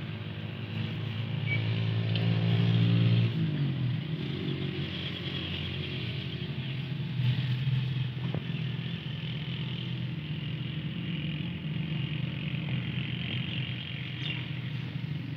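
A motor vehicle engine passing close by, growing louder up to about three seconds in, where its pitch drops, then a lower steady engine hum carrying on.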